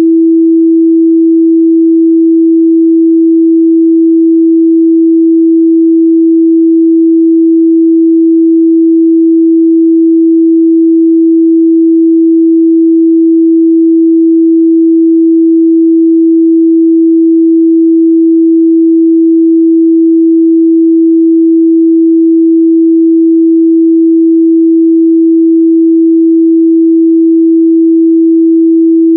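A steady, unbroken 328 Hz sine-wave test tone, a single pure mid-range pitch held at a constant loud level.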